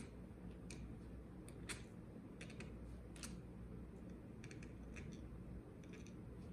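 Faint, irregular light clicks and taps of small lock parts (pins, springs, the core) being handled and set down on a work surface, about a dozen over a steady low background hum.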